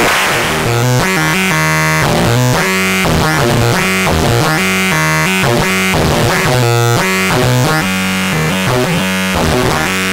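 Synthesizer notes run through the PLXNA2, a handmade analog signal processor built around 6CB6 pentode vacuum tubes. It plays a fast sequence of pitched notes, changing several times a second, over a low bass line.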